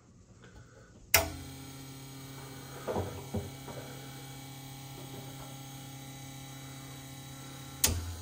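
Espresso machine pump switching on with a sharp click about a second in, then humming steadily as the shot starts, before any coffee drips from the bottomless portafilter. There are two light knocks about three seconds in, and another sharp click near the end.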